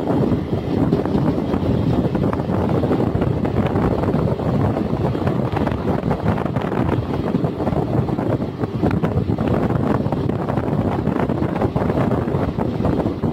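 Passenger train running at speed, heard from an open coach doorway: a steady rumble of wheels on the rails with many small irregular knocks, and wind buffeting the microphone.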